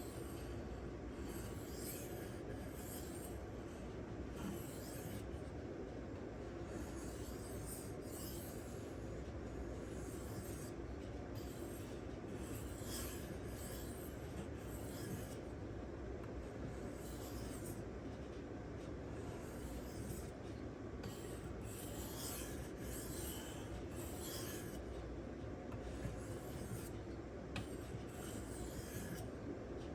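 Steel knife blade being stroked back and forth across a Shapton Kuromaku 1500-grit sharpening stone: a steady rasping scrape in repeated strokes.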